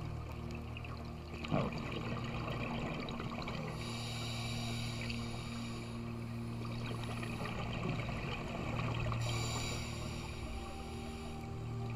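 Underwater sound heard through a GoPro's waterproof housing: a steady low hum with a fine crackle over it, and a high hiss that comes and goes twice. A single sharp knock about a second and a half in.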